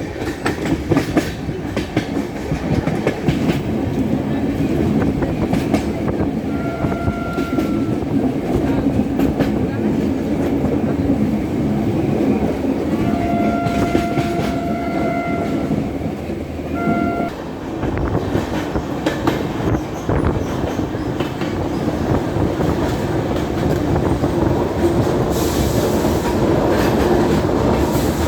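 Hirakhand Express train running with steady wheel clatter and rumble. Its horn sounds three times: a short blast about seven seconds in, a longer one of about two and a half seconds a few seconds later, and another short blast soon after.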